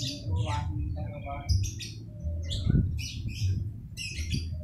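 Small birds chirping in quick, short, high calls, over and over, above a low on-and-off hum.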